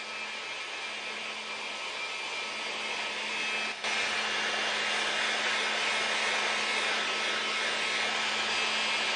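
Electric heat gun blowing steadily on its highest setting, a continuous airy rush with a faint hum, dipping briefly about four seconds in.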